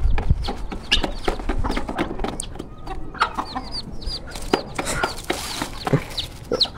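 Chickens clucking as they crowd around a feed bowl, with short high chirps and many quick sharp taps.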